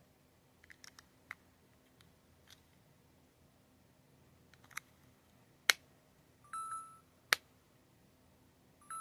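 AirPods Pro (2nd generation) charging case being handled: a series of sharp clicks of its magnetic lid snapping open and shut, the two loudest a little past halfway. Two short electronic chimes from the case come just after the middle and again at the very end.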